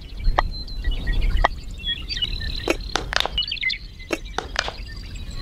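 Miniature clay bricks clicking and knocking as they are picked from a pile and set down one by one onto a cement base: about nine short, sharp clicks at uneven intervals.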